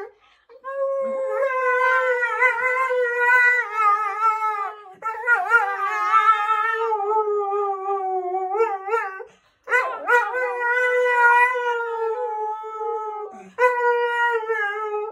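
A dog howling in long held notes at about the same pitch, with a woman singing along with it. The howls break off for short pauses every four seconds or so.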